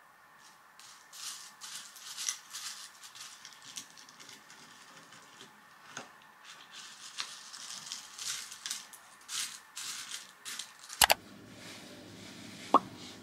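Spoon scooping through crunchy cornflakes in a glass mug of yogurt, the flakes crackling in short, irregular bursts. Near the end, a pair of sharp clicks, then a low steady room hum with one more click.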